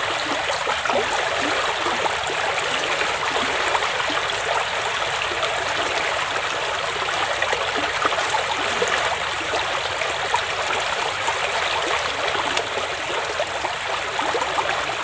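Water of a shallow muddy stream running steadily, with small gurgles.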